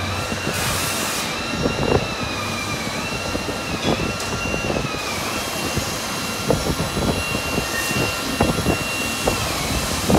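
Steady hum of machinery in a machine shop, with a high whine that sags in pitch and comes back up several times, and scattered light clicks and knocks.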